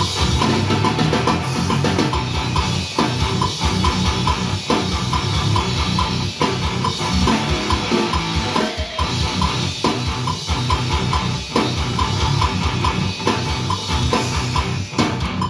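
Death metal being played: fast, dense drumming with rapid kick-drum hits under heavy electric guitar.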